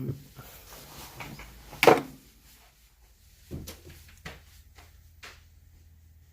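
Metal tools clicking and knocking against a euro lock cylinder while its back cap is pried off: a handful of separate knocks, the loudest about two seconds in.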